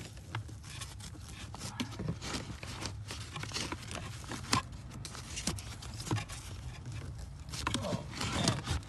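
Ford Transit Connect cabin air filter being pulled out of its plastic housing: scattered clicks, scrapes and rustling of the filter and plastic parts.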